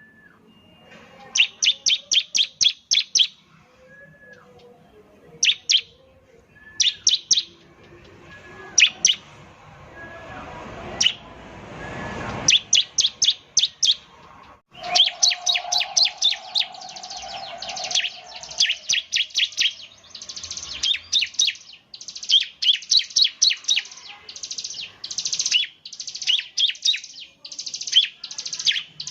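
Bar-winged prinia (ciblek) singing fast runs of sharp, high chip notes, several to a burst, the bursts coming closer together in the second half. A rushing noise swells and stops about halfway through.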